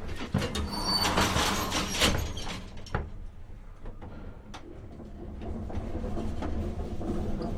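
Old elevator: a run of clanks and a rattling clatter in the first three seconds, with two sharp knocks, then a low steady rumble that grows louder as the car runs.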